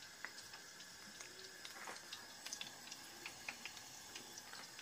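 Battered chicken pakora deep-frying in a pan of hot oil: a faint sizzle with many scattered small pops and crackles.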